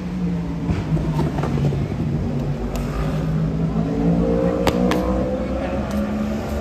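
A motor vehicle engine running and speeding up, its pitch rising past the middle, with a few sharp clicks over it.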